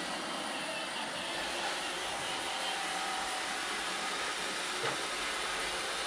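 iRobot Roomba 565 robot vacuum cleaner running, its vacuum motor giving a steady, even whir.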